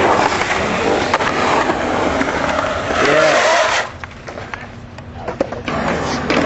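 Skateboard wheels rolling over concrete, a loud steady rolling noise that drops away about four seconds in for a couple of seconds. Sharp clacks of the board sound at a few points.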